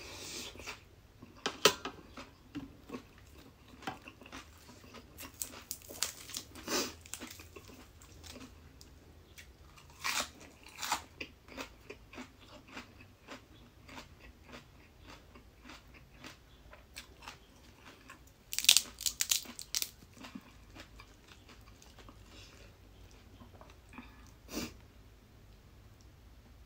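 Close-miked chewing and crunching of a mouthful of Thai cucumber salad, a run of small crisp crunches with louder bursts now and then, the loudest about two-thirds of the way through.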